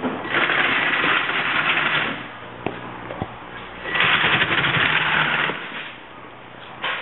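The electric gear motors of a large treaded robot running its tracks in two bursts, about two seconds and a second and a half long, with a faint steady whine. A sharp click or two comes between the bursts.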